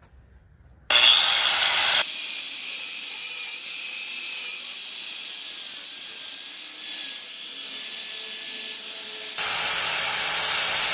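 Electric angle grinder grinding off a seized pin in a semi truck's steel brake spider, cutting in about a second in and running steadily with a high whine.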